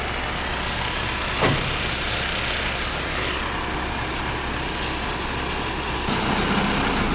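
Heavy vehicle's diesel engine idling steadily under a steady hiss.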